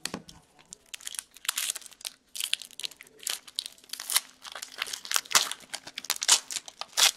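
A hockey card pack wrapper, Upper Deck Artifacts, being torn open and crinkled by hand: a quick, irregular run of sharp crackles.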